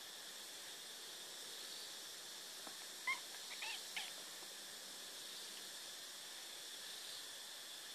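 Kittens play-fighting: a kitten gives three short, high squeaks about three seconds in, the first the loudest, over a steady hiss.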